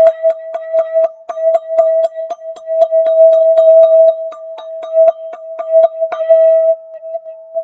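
Golden ZenTube struck in a quick, even roll on one steady pitch, about four strikes a second. A louder strike a little after six seconds in is left to ring, and it fades toward the end.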